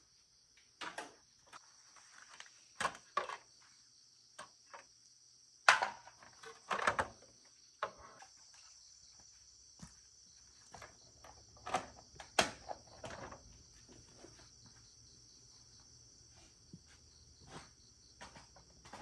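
Steady high-pitched chirring of crickets or similar insects, with scattered sharp knocks and clinks of things being handled, the loudest about six and twelve seconds in.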